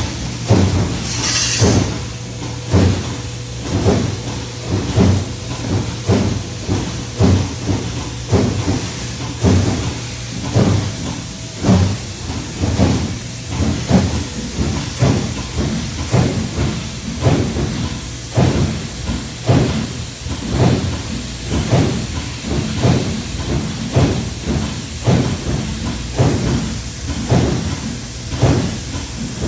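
Industrial machinery running: a steady hum under repeated clanking impacts, roughly one a second and not quite even, with a short hiss of air or steam about a second in.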